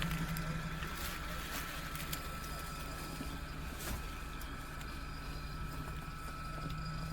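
An off-road vehicle's engine idling steadily, with a thin steady high whine and a few light clicks over it.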